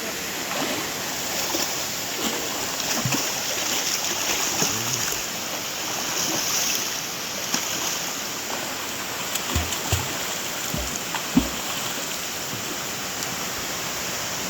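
Waterfall rushing with a steady, even roar of falling water. A few short low bumps come about two thirds of the way through.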